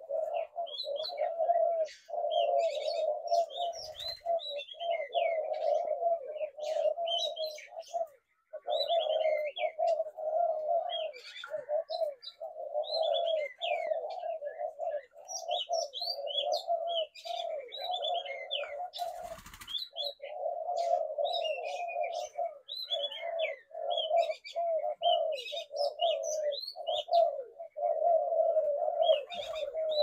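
Spotted doves cooing almost without pause, many coos overlapping, while small birds chirp high above them. A brief rustle cuts in once, about two-thirds of the way through.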